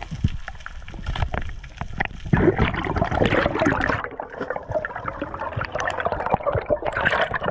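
Underwater sound through a GoPro's waterproof housing: scattered clicks and knocks, then from about two seconds in, steady bubbling and gurgling as air bubbles stream past the camera.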